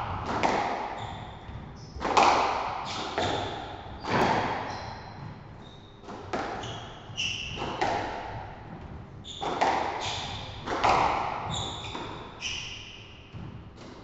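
Squash rally: the ball cracks off the rackets and the front wall every second or so, each hit ringing briefly in the court. Short high squeaks of court shoes on the wooden floor come between the shots.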